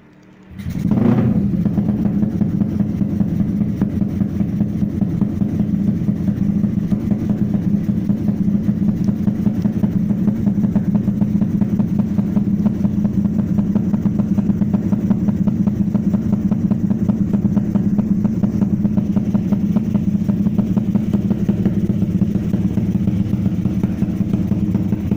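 Tuned Suzuki Satria FU motorcycle engine, bored out to 200 cc, running through a racing exhaust. It starts abruptly about half a second in, then runs steadily at a constant speed with no revving.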